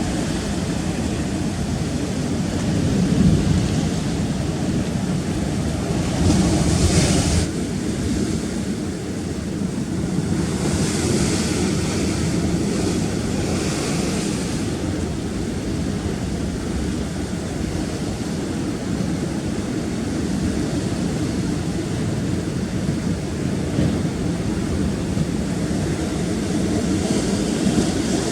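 Rough sea surf against rocks with wind buffeting the microphone: a steady rumble of breaking water, with a louder hissing wash of a wave about six seconds in and again around eleven to fourteen seconds.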